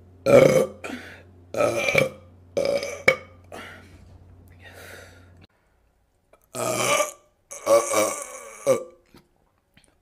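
A woman belching loudly over and over, about seven separate burps each lasting about half a second, the loudest right at the start, with a short quiet gap around the middle.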